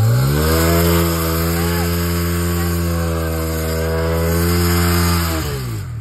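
Motorcycle engine revved up hard right at the start and held at high revs for about five seconds, then dropping back near the end, with the bike bogged in mud.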